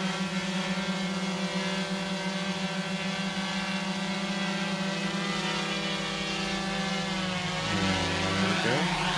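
GoPro Karma quadcopter's motors and propellers spinning up to speed with a steady multi-tone whine. Near the end the pitch dips and rises as the motor speeds change.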